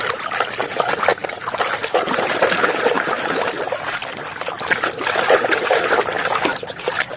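Running water trickling and splashing over a muddy toy vehicle as it is washed, a steady spattering wash.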